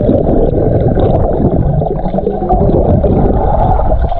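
Wind buffeting the microphone: a loud, steady, low rumble.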